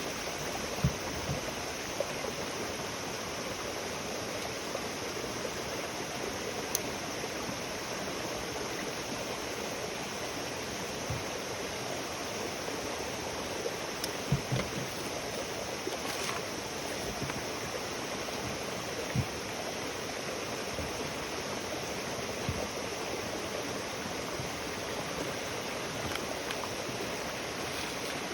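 Wood campfire burning: a steady rushing noise with a handful of sharp pops and crackles from the burning wood.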